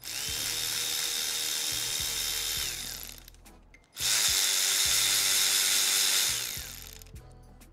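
Cordless electric ratchet running in two bursts of about two and a half seconds, the second louder. Each spins up to a steady whine and then winds down as it turns the 3.6L Pentastar V6 back to bring a camshaft lobe down.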